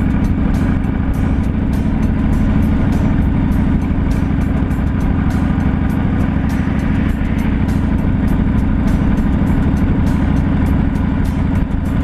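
Steady low rumble of a moving vehicle's road and wind noise, under music with a quick, even beat of ticks.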